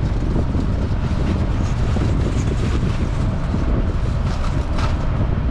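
Steady low rumble of wind buffeting the microphone over the sound of a running vehicle, with a few faint clicks near the end.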